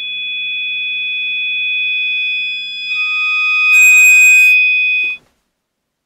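Electronic film-score drone: a steady, loud high-pitched tone over a faint low pulse, which gathers more high tones and a hissing swell about four seconds in, then cuts off suddenly about a second before the end.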